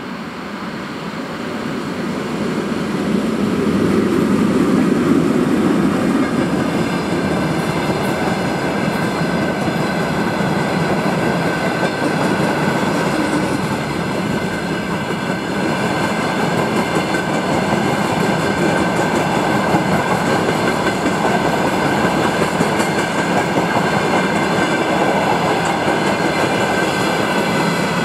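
VL80T electric locomotive passing close by with a freight train of covered hopper wagons: a low rumble swells over the first few seconds as the locomotive goes by. It gives way to the steady rumble and clatter of the wagons' wheels on the rails, with a steady high whine running through from about eight seconds in.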